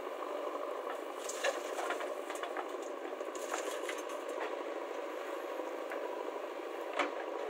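JCB backhoe loader's diesel engine running steadily while it digs and dumps earth into a tractor trolley, with scattered knocks and clicks from the bucket and soil.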